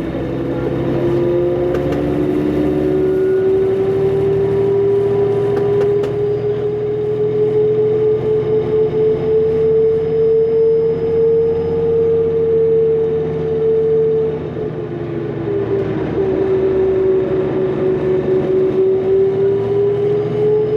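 Interior of a 2005 New Flyer D40LF transit bus under way, its Cummins ISL diesel running with a loud turbo whine that rises slowly in pitch as the bus gathers speed. About two-thirds through the whine drops in pitch and the sound briefly eases, then it climbs again.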